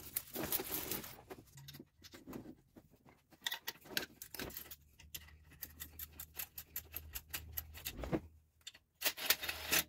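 Irregular metallic clicks, clinks and rattles of hand tools and bolts being handled, with a denser rattling stretch near the start and again near the end.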